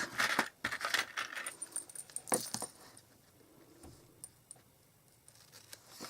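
Scissors being handled and snipping through ribbon: a few sharp metallic clicks and paper rustles in the first couple of seconds, then only faint ticks.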